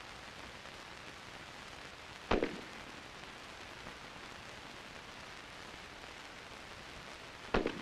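Two rifle shots about five seconds apart, each a sharp crack with a short tail, over the steady hiss of an old film soundtrack.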